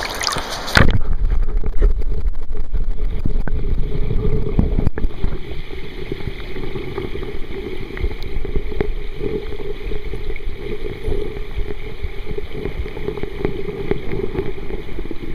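Muffled rumble of flowing river water, picked up by a camera microphone held under the surface of a stream. It sets in abruptly about a second in as the camera goes under, then runs as a dense, steady low rush.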